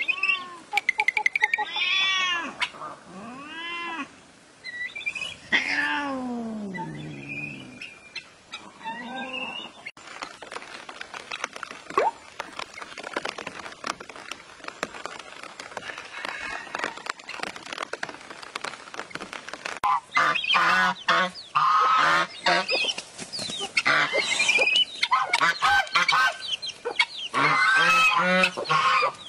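Domestic fowl calling, ducks and chickens, in a string of short rising-and-falling calls that come thick and fast from about twenty seconds in.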